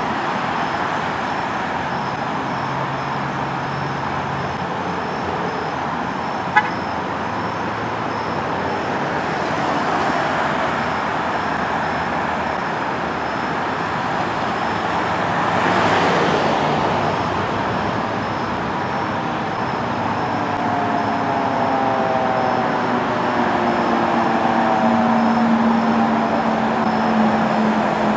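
Steady road traffic noise, with a vehicle passing about halfway through. In the last several seconds a fire engine's siren comes in. Its wail sweeps up in pitch and grows louder as the engine approaches.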